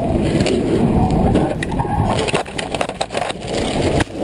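Ford F-150 pickup being hit and spun by a semi-truck: a heavy, noisy rumble with rapid crunching and rattling cracks, cutting off suddenly near the end.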